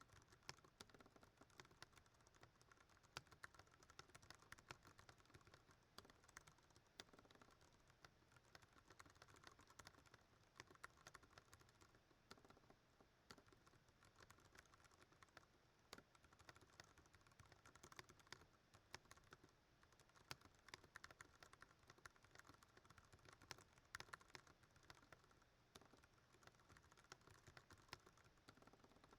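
Quiet, fast continuous typing on a Ducky One 2 Mini mechanical keyboard with Cherry MX Brown switches: a dense stream of key clacks, many a second, with occasional louder strikes standing out.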